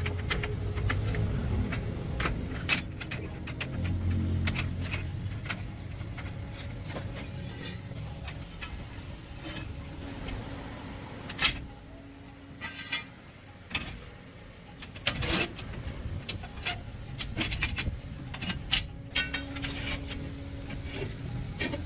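Repeated metal clinks and knocks of hand tools and heavy parts being handled, over a low rumble that is strongest in the first few seconds.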